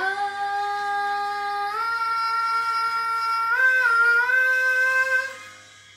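A boy singing one long held "ah" as the final note of a song, stepping up in pitch twice, about two seconds in and again just before four seconds, then fading out a little after five seconds.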